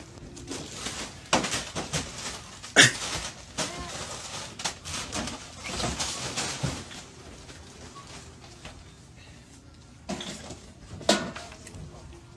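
Store merchandise being knocked off shelves: a run of crashes and clatters as boxed goods hit the floor. The loudest crash comes about three seconds in, and two more come near the end.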